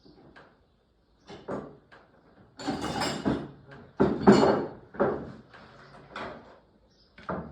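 Someone rummaging through a metal toolbox or tool drawer, with hand tools clattering and scraping against each other. The bursts are irregular, with the loudest rattles about three seconds and four seconds in.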